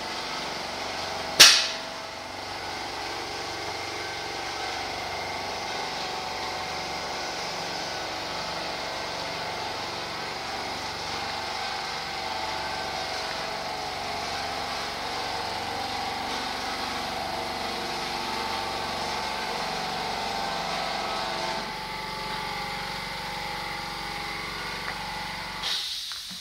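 Steady hum of a small motor running, with one sharp click about a second and a half in; the hum drops away near the end.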